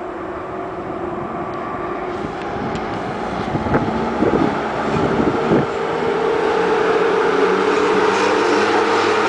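EU07 electric locomotive hauling a passenger train, pulling out of the station and passing close by. A steady electric hum and rolling wheel noise grow louder as it nears, with a few brief knocks between about four and five and a half seconds in.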